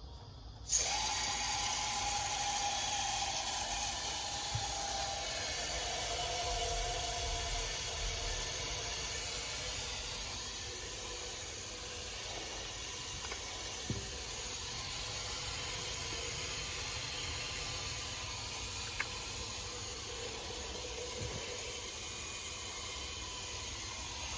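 Nitrogen hissing steadily from a bottle into an old R22 air conditioner as it is pressurised for a leak test, starting abruptly about a second in. The system has lost its refrigerant through a leak.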